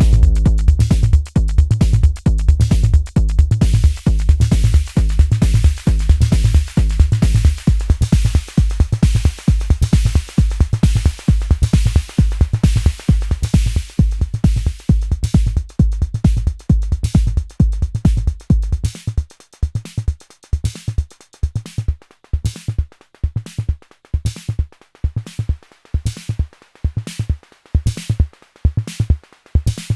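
Arturia DrumBrute Impact analog drum machine playing a steady programmed beat, run through external reverb and delay. About two-thirds of the way through, the heavy low kick and bass drop out, leaving lighter, sharper hits.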